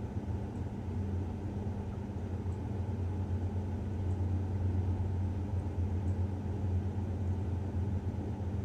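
Low, steady engine rumble of street traffic heard through a closed apartment window, muffled so that only the low end comes through. It swells a little midway.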